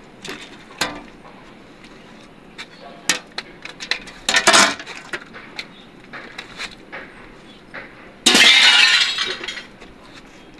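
Broken concrete and tile rubble being handled at the mouth of an opened tomb niche: scattered clinks and knocks, a denser clatter about halfway through, and a louder rush of scraping debris lasting just over a second near the end.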